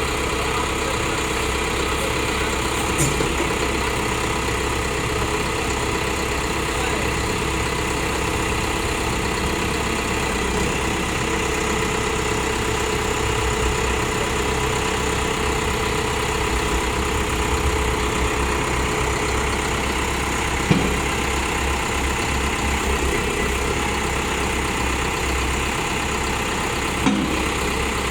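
Liugong 764A backhoe loader's diesel engine idling steadily, with a couple of brief knocks about twenty seconds in and again near the end.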